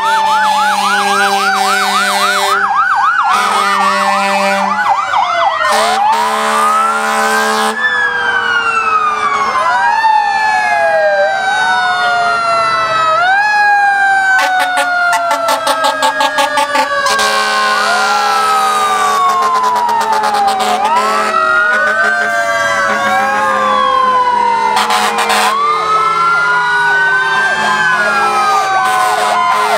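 Several fire trucks passing with sirens going at once, wails and a fast yelp overlapping. At least one siren winds up quickly and then slowly coasts down, like a mechanical Federal Q siren. Steady horn blasts sound on and off over the sirens.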